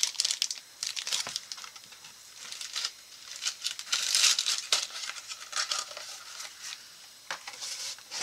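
Packaging being handled and unwrapped around rifle parts: crinkling in irregular bursts with a few sharp clicks, loudest about four seconds in.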